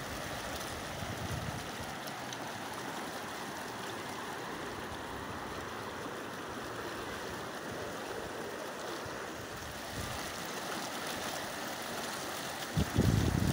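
Fast, turbulent mountain river rushing over rocks and around the pillars of a platform: a steady wash of water noise. Near the end a louder low rumble comes in.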